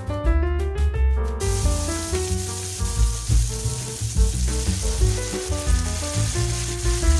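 Diced tomato, onion, garlic and chilies sizzling in a hot nonstick frying pan: a steady frying hiss that starts suddenly about a second in, with a soy-and-oyster sauce mixture poured into the pan near the end. Background music with a steady bass plays throughout.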